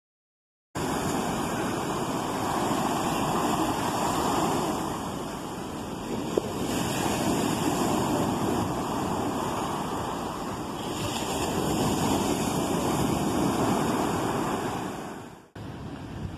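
Sea surf breaking on a sandy beach: a steady rush of waves that swells and eases every few seconds. It cuts off suddenly near the end.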